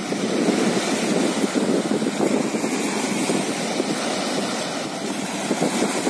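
Small sea waves washing onto a rocky shore in a steady, rushing wash, with wind on the microphone; a wave comes in a little louder near the end.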